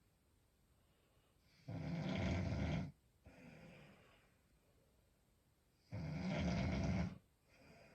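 A woman snoring in her sleep: two loud snores, each about a second long and some four seconds apart, each followed by a softer breath.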